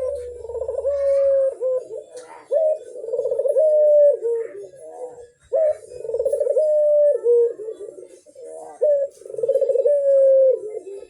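Puter (Barbary dove) cooing: several long, rolling coo phrases of a few seconds each, one after another with short breaks, each stepping slightly in pitch.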